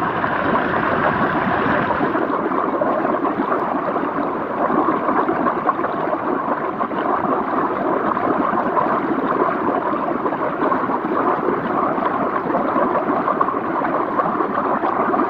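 Hot tub's jets churning the water: a steady bubbling, gurgling rush.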